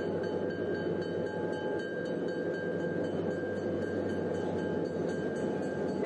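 Steady rumbling noise of a train running, with faint high ringing tones and light, rapid, even clicking over it.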